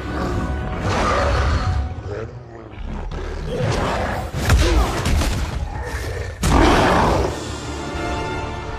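Film soundtrack: orchestral score under a monster's growling roar just after the start and heavy impacts of a fight, the loudest a bit over two-thirds of the way in.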